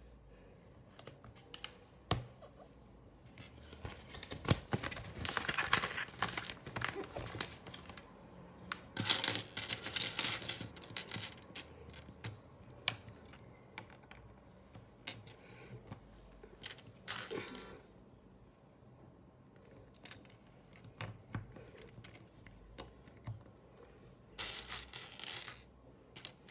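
Plastic Lego pieces handled and pressed together on a glass tabletop: scattered clicks and taps, with a few longer spells of clattering and rattling.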